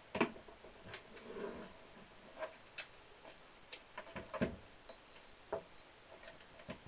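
Irregular light clicks and taps of small parts and tools being handled during an RC car teardown, with a louder knock just after the start and another about four and a half seconds in.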